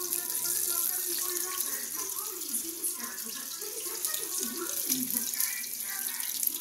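Slices of Spam frying in olive oil in a non-stick pan: a steady high hissing sizzle full of small crackles.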